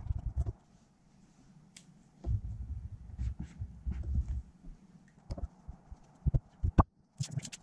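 Close handling noise of a marker rubbing on a small cardboard box, a low scrubbing that runs for about two seconds. It is followed by a few sharp clicks and knocks, with a small cluster near the end, as boxes are picked up and set down.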